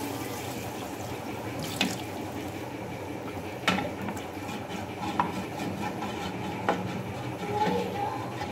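Water poured from a plastic bottle into an aluminium pressure cooker of fried masala, then stirred in with a wooden-handled spoon that knocks against the pot about four times.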